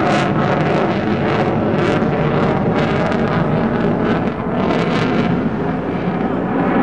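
Lockheed Martin F-22 Raptor's twin Pratt & Whitney F119 turbofans, a loud continuous jet noise as the fighter manoeuvres in flight, with wind noise on the microphone.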